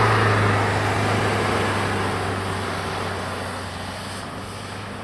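Stock diesel UAZ Patriot's engine running at a steady pitch as the SUV drives past through snow and away up the track, fading steadily.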